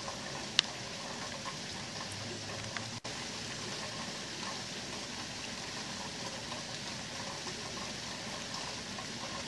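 Heavy rain falling steadily, a fine even patter of drops, with one sharp tick about half a second in and the sound cutting out for an instant about three seconds in.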